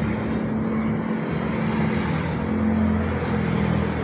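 Steady motor-vehicle engine hum with road traffic noise, swelling slightly about two and a half seconds in.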